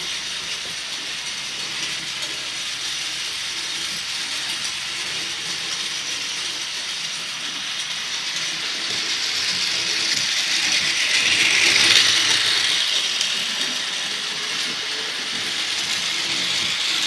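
Cheap toy train's small electric motor and gears whirring and rattling as the locomotive runs round a small circle of toy track, getting louder for a few seconds about two-thirds of the way in.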